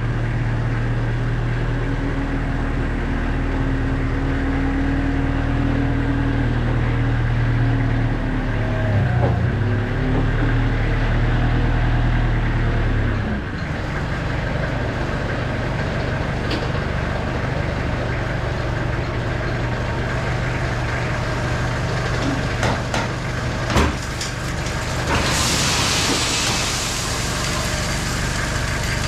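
Moffett Mounty truck-mounted forklift's engine running steadily, its note changing about halfway through. Near the end there are a few clanks, then a rush of crushed rock sliding out of the tipped hopper onto the concrete.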